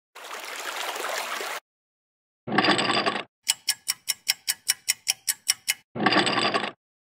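Dubbed cartoon sound effects, each one cut off sharply into silence: a hiss, then a short noisy burst, then a run of about a dozen quick, even ticks at about five a second, then another short noisy burst.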